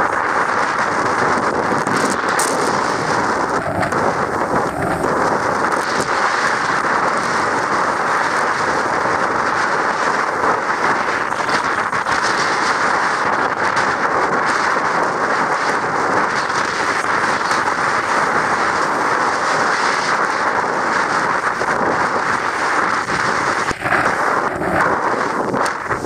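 Steady rush of wind on the microphone mixed with the sailboat's foaming wake and breaking waves, loud and continuous.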